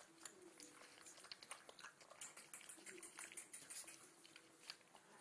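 Alaskan Malamute puppies lapping and chewing mushy food from a plastic dish: faint, irregular wet smacks and clicks, many per second.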